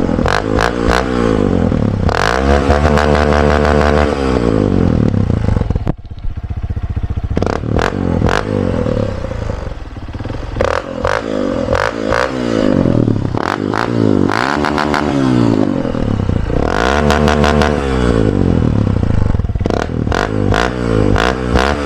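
Honda CRF150's single-cylinder four-stroke engine, breathing through an Exos X-6 exhaust with its silencer removed, revved up and let fall about half a dozen times, some revs held briefly. It sounds crisp at the higher revs, with sharp pops and crackles between the revs.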